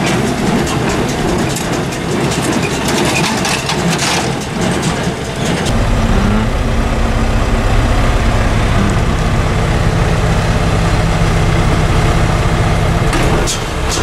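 John Deere 328 small square baler working behind a John Deere 6300 tractor, giving a noisy mechanical clatter with many sharp clicks. Just under halfway through it gives way to the steady low drone of the tractor's four-cylinder diesel heard from inside the cab, with a few sharp clicks near the end.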